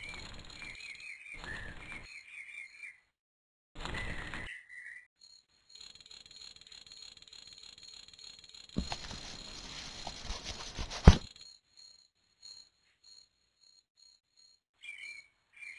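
Outdoor nature ambience of birds chirping and a steady high insect trill. About nine seconds in, a louder two-second stretch of noise ends in one sharp, loud crack.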